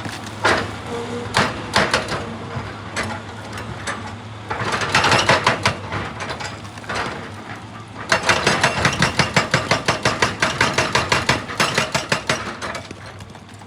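Excavator engine running under a hydraulic rock hammer. The hammer knocks a few times, then beats rapidly in two runs of about nine blows a second, one near the middle and a longer one in the second half.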